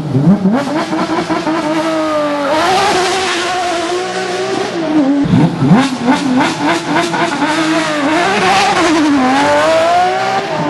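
Porsche 911 GT3 rally car's flat-six engine at full racing effort, its pitch climbing and dropping repeatedly as the driver shifts gears and lifts off.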